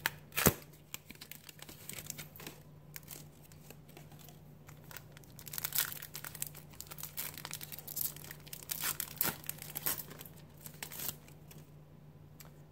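Pokémon card blister pack packaging being torn open and crinkled by hand, with scissors cutting the wrapper partway through. There is a sharp snap about half a second in, and a steady low hum runs underneath.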